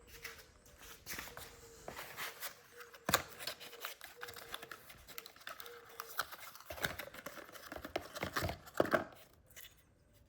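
Packaging being handled and torn open: irregular rustling, tearing and crinkling with sharp knocks, loudest about three seconds in and again near the end. A faint steady hum sits underneath.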